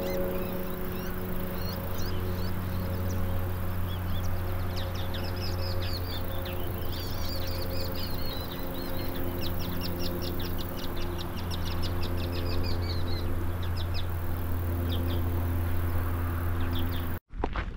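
Wild birds chirping and trilling, some in fast runs of quick notes, over a steady low hum. The sound breaks off abruptly near the end.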